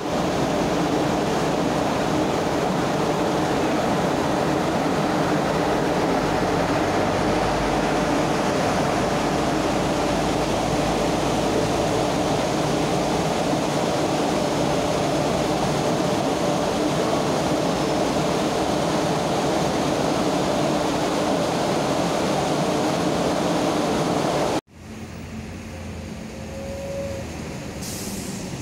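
Steady, loud engine drone that cuts off abruptly near the end, giving way to quieter street traffic.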